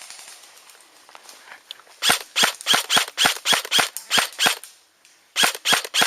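Airsoft gun firing rapid single shots: a string of about nine at roughly four a second starting about two seconds in, a short pause, then a few more near the end.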